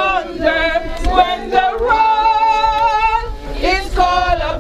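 A group of people singing a hymn together in slow, long held notes.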